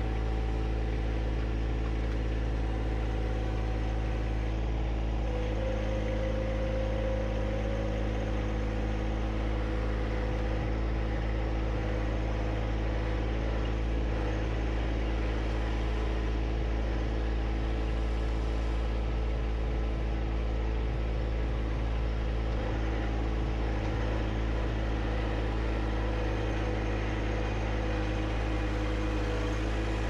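John Deere 1025R compact tractor's three-cylinder diesel engine running steadily at an even speed, with slight shifts in pitch a few times.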